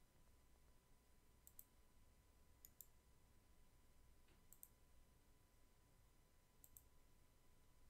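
Faint computer mouse clicks over near silence: four quick double ticks, the press and release of the button, spaced a second or two apart.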